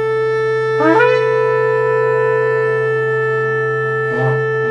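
A shofar blown in one long held blast. The note slides briefly upward about a second in, then holds steady, and wavers near the end, with a low steady drone beneath.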